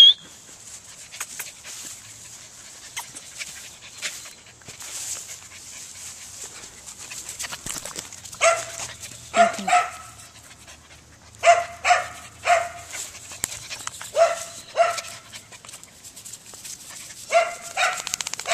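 Small dog barking in short, high-pitched barks, about ten in groups of two or three through the second half, after a single sharp yelp at the very start.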